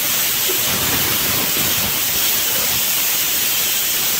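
Pressure cooker on a gas burner venting steam through its weight valve: a steady, loud hiss with no clear whistle tone.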